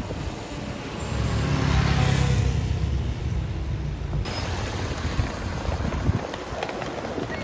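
Road traffic on a wet street: a vehicle passes close by with a low engine hum and tyre hiss that swells and fades over a couple of seconds. About four seconds in it cuts suddenly to lighter street traffic noise.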